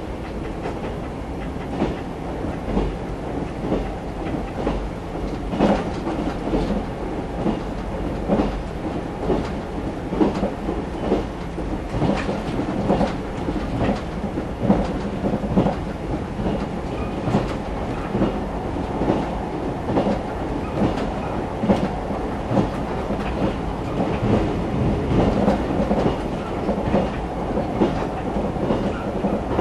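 JR 381 series electric train heard from inside the passenger car while running at speed: a steady rumble with the wheels clicking over rail joints again and again.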